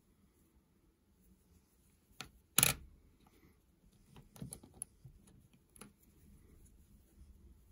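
A few sharp clicks and taps, the loudest about two and a half seconds in, then a quick cluster of smaller clicks and one more near six seconds.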